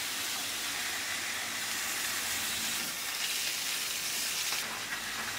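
Sausages sizzling in a frying pan on a gas stove: a steady hiss of frying fat.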